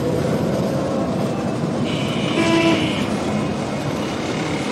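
Steady street traffic and vehicle engine noise, with a vehicle horn honking for about a second about two seconds in.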